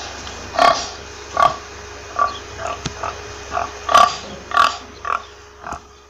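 Domestic pig grunting: a run of short grunts roughly every half second, growing fainter near the end.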